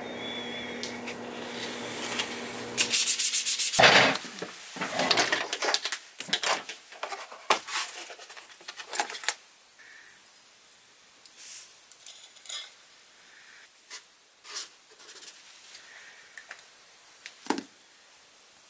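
A steel knife blade being sanded: a steady sanding noise with a low motor hum for about three seconds, then a loud run of fast, even rubbing strokes, then irregular strokes that thin out. Sparse light clicks and handling noises follow.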